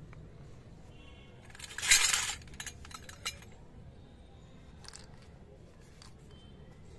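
Small plastic toy kitchen pieces clinking and rattling as they are handled: a short, loud clatter about two seconds in, then a few light clicks.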